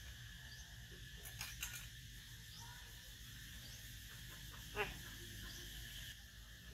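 Steady high-pitched drone of insects in the background, with a few soft clicks and one short, sharper sound just before five seconds in, around when the jackfruit is pulled open.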